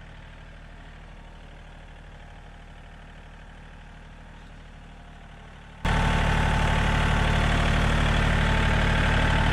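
John Deere tractor engine running steadily at idle, as a low even hum. About six seconds in it suddenly becomes much louder and fuller, then stays steady.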